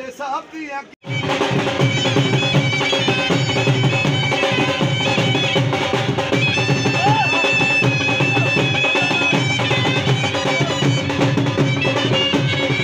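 A voice briefly, then about a second in loud traditional folk music cuts in: a fast drum beat under a held, piping melody over a steady drone.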